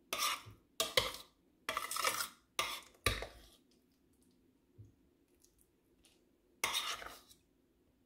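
A metal spoon scraping mashed potatoes and carrots out of a stainless steel bowl: five quick scrapes in a row, then one more near the end.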